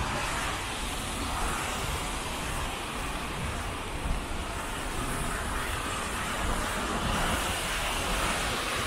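Steady noise of heavy typhoon rain and wind, with city traffic on wet roads; gusts rumble against the microphone.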